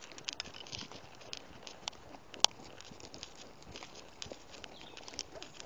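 Hooves of two ridden horses on a dirt forest path, an irregular patter of soft hoofbeats, with one sharp click about halfway through.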